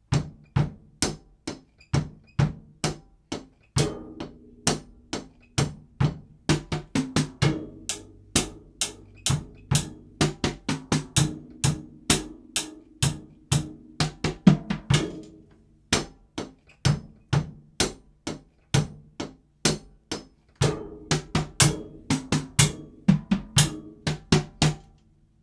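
Acoustic drum kit played as a continuous groove with fills: kick drum and snare hits with toms and cymbals, thinning out for a few seconds past the middle before picking up again.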